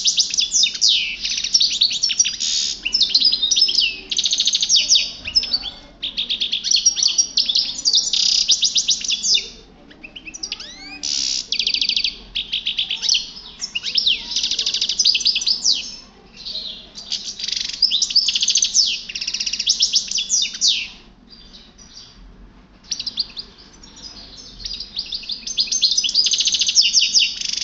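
European goldfinch singing: long runs of rapid, high-pitched notes, broken by short pauses of a second or two.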